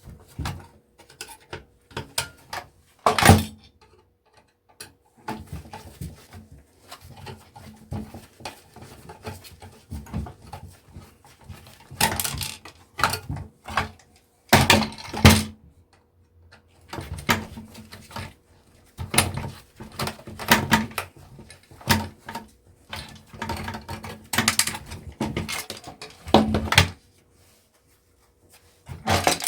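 Plastic and metal parts of a projector being handled and pried apart, with irregular clicks, knocks and rattles and a few louder clatters as pieces are set down on the work surface.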